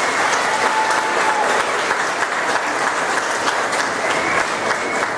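A seated audience applauding steadily, a dense, even clatter of many hands clapping.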